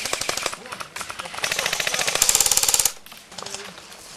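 Airsoft AK-style rifle firing full-auto bursts: a rapid rattle of shots, a short burst about a second in, then a longer burst lasting about a second and a half.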